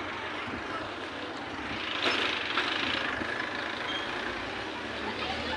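Street noise with a motor vehicle's engine running nearby, swelling louder for about a second midway.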